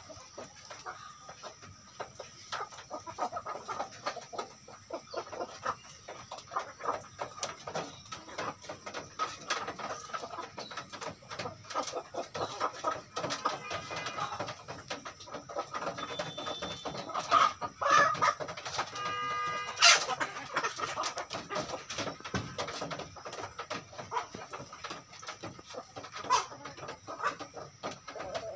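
Indonesian native chickens (ayam kampung) clucking while they feed, over a dense run of quick clicks from beaks pecking at scattered feed. About 19 seconds in, one bird gives a longer, pitched call.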